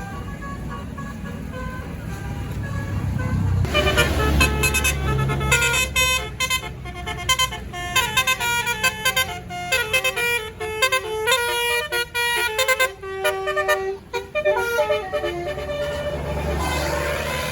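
A tour bus's Basuri "telolet" multi-tone horn playing a fast stepping melody for about ten seconds, starting a few seconds in, over the bus engine's low running. The engine rumble is louder again near the end once the horn stops.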